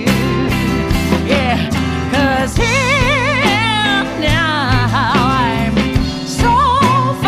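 A song with a full band backing: a lead melody, sung or played with a wide vibrato, over a steady bass and beat.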